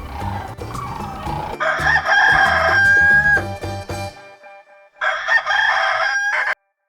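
Rooster crowing twice. The first crow holds a long high note; the second is cut off abruptly near the end. Background music with a steady beat plays under the first crow.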